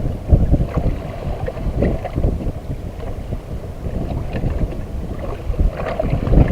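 Wind buffeting the microphone in an uneven, gusty low rumble.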